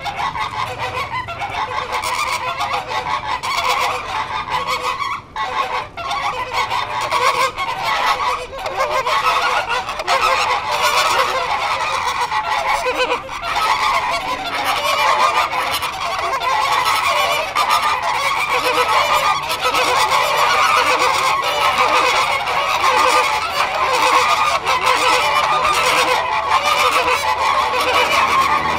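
A flock of American flamingos calling all at once: many goose-like honks overlapping in a dense, continuous chorus without a break.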